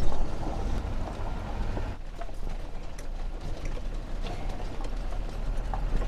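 Land Rover driving over a rough gravel track, heard from inside the cab: a low rumble from the engine and tyres on stones, with occasional knocks and rattles. The noise drops a little about two seconds in.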